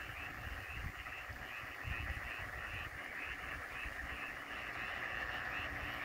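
A chorus of many frogs calling together at night, a continuous croaking with a quick repeating pulse of about three to four calls a second standing out on top. Low, uneven rumbles sit underneath.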